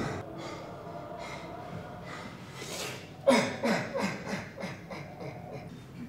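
Short, breathy human vocal sounds: a puff of breath, then from about three seconds in a quick run of short grunts falling in pitch that fades out.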